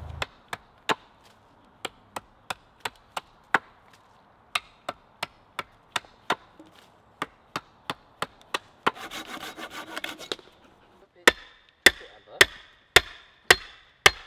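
Hatchet chopping wood on a chopping block: quick, light blows about three a second pointing a wooden stake, a short rasping stretch around nine seconds in, then heavier, evenly paced axe strikes about two a second near the end as an axe bites into an upright branch on the block.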